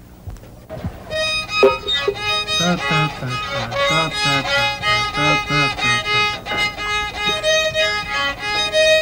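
A violin bowed in a flowing melody of quickly changing notes, with lower notes sounding beneath it through the middle of the passage.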